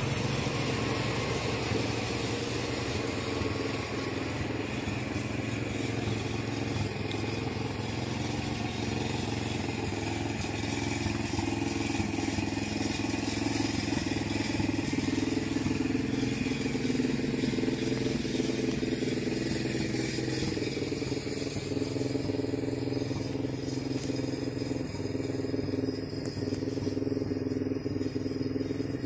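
A motor vehicle's engine running steadily, its pitch dipping slightly about halfway through.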